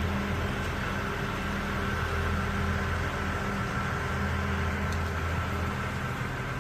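Heavy machine's engine running steadily, with a steady high whine over it.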